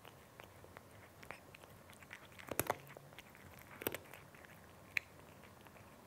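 A cat chewing dry kibble: irregular small crunches and clicks, with a few louder crunches about halfway through and a sharp click near the end.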